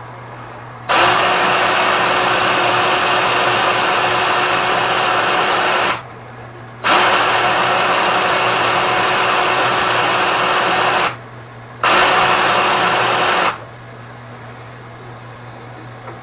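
Power drill spinning a flexible-shaft drain-cleaning cable inside a clogged kitchen drain pipe, run in three bursts of about five, four and two seconds, each with a steady high whine and cutting off sharply.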